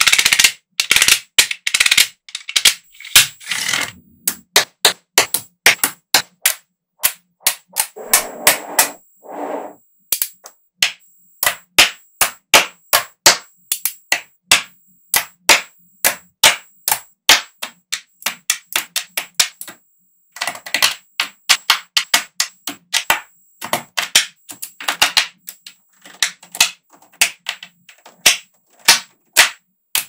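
Small magnetic balls clicking and snapping onto one another as clusters are set in place, an irregular run of sharp clicks with a few short rattling clatters.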